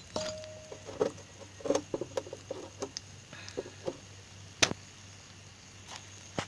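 Scattered clicks and knocks of kitchen utensils against cookware as an egg-and-vegetable mixture is poured into a frying pan, with the sharpest click a little past halfway. A low steady hum runs underneath.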